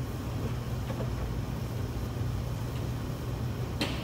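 Steady low hum of commercial kitchen equipment, with a faint tick about a second in and a sharp click near the end.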